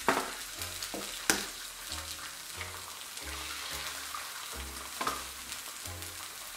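Eggs frying on a hot electric griddle: a steady sizzle, broken by three sharp knocks, about a second in, near the start, and about five seconds in.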